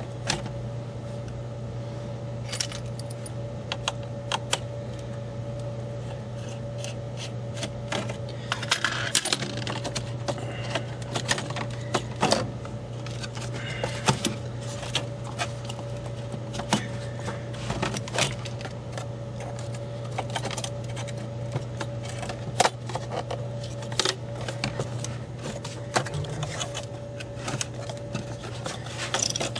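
Scattered clicks, taps and small knocks of metal and plastic as a Dell XPS laptop's video card and copper heat-pipe heatsink are worked loose inside the chassis, busier from about eight seconds in, over a steady background hum.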